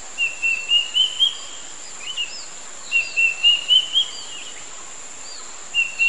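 Square-tailed drongo-cuckoo (kedasih hitam) calling: a phrase of about six clear whistles that climb in pitch note by note, given three times. A faint steady high whine runs behind it.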